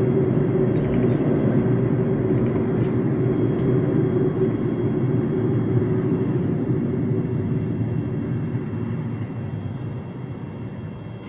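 Road and tyre noise with engine drone inside a moving MG ZS's cabin: a steady low rumble that grows quieter over the last few seconds.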